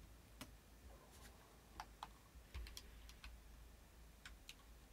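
Faint, scattered small ticks and taps of a CZ 83 pistol and trigger pull gauge being handled while the trigger is taken up, near silence in between.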